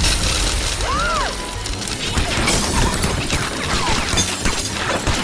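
Cartoon sound effects: a sudden crash and a shower of coins clattering and shattering, over music. A short rising-and-falling squeal comes about a second in.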